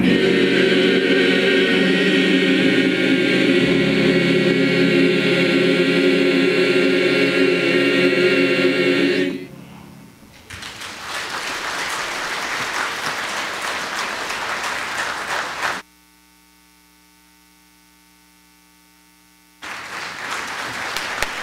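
Mixed choir holding a long final chord that cuts off after about nine seconds, followed by audience applause. Partway through, the sound drops away to a faint hum for about four seconds before the applause resumes.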